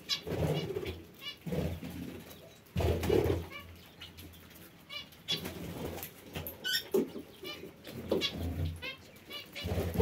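Domestic pigeons cooing in low, repeated phrases every second or two, while parakeets chirp in quick high-pitched runs over them.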